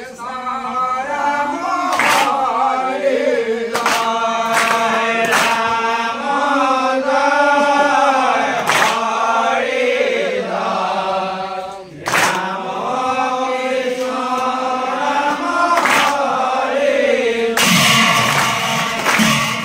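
Devotional nam-prasanga: a group of voices chanting a slow, drawn-out naam in unison, broken by sharp claps every few seconds.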